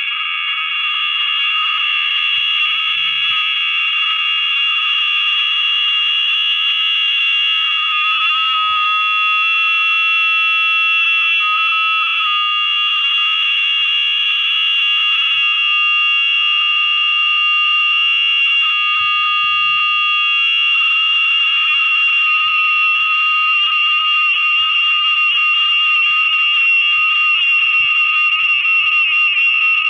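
Continuous shrill electronic whine made of several steady high pitches held together, typical of audio feedback from a phone re-recording its own playback. Its texture wavers about nine seconds in and again about twenty seconds in, but it never stops.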